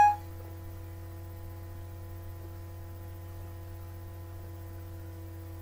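Steady low hum with faint steady tones above it. At the very start, the tail of a short pitched chime from the iPhone as Siri stops listening dies away.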